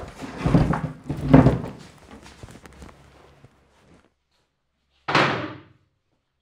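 Heavy thuds and knocks, like a door or wooden furniture being banged, then a single sharp slam-like hit about five seconds in.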